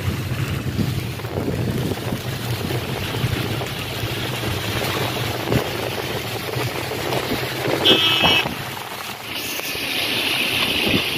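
Car driving on a wet road in heavy rain, heard from inside the cabin: steady engine and road noise under the hiss of rain and tyres. A brief high-pitched tone sounds about eight seconds in, and from about nine seconds a louder rush of wind and rain comes in.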